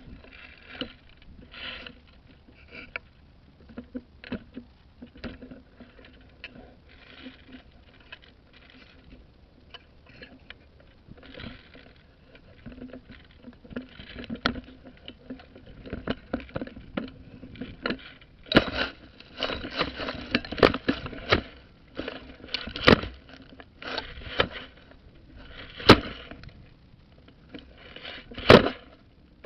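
Rustling and scraping with scattered sharp clicks, growing busier in the second half, and several loud sharp cracks near the end.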